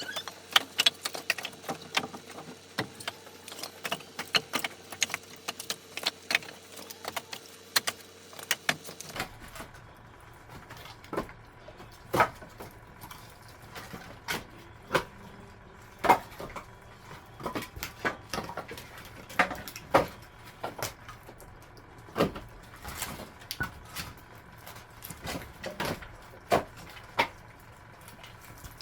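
Irregular knocks and clatters of wood being handled, several a second at first and sparser and more spaced out after about nine seconds in.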